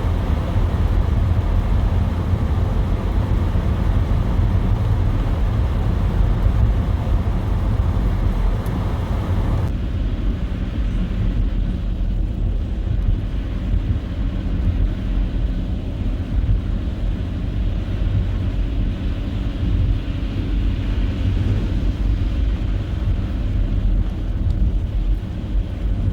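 A car driving on a snowy road: a steady low rumble of engine and tyre noise, with a hiss above it that drops off suddenly about ten seconds in, leaving mostly the low rumble.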